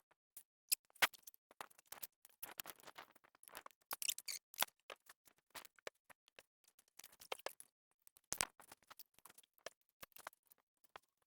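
Irregular small metallic clicks, taps and short scrapes of hand tools and fasteners as bolts are worked at the radiator guard mounts, with a couple of sharper knocks about a second in and near eight seconds.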